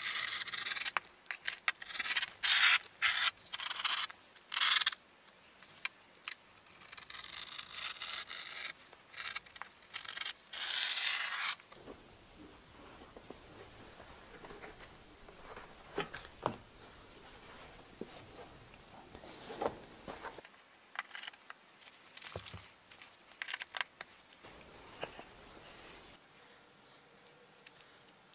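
Rough scraping and rubbing strokes of a hand working sheet material against a long metal straightedge, loud and hissy for about the first twelve seconds, then dying down to quieter scattered clicks and rustles of handling.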